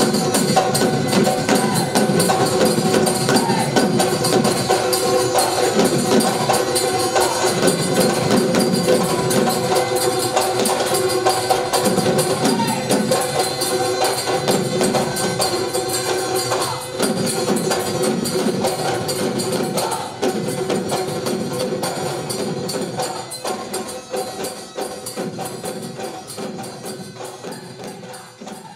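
Bihu folk music: dhol barrel drums beaten in a fast, dense rhythm, with a pepa buffalo-horn pipe sounding steady held notes over them, fading out near the end.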